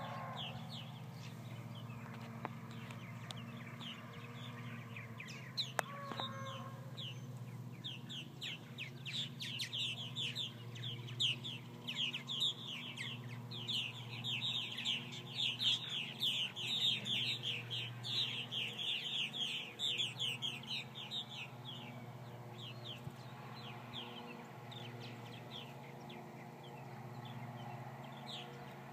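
A flock of purple martins calling in flight: a dense chatter of short, quick downward chirps, thickest around the middle. A steady low hum runs beneath.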